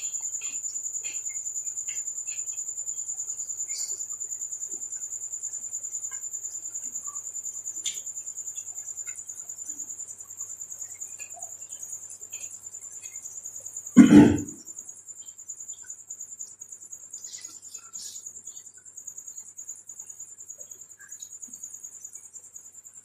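Faint clicks and mouth sounds of someone eating, over a steady high-pitched chirring of crickets. About fourteen seconds in, one short loud cough-like throat sound stands out.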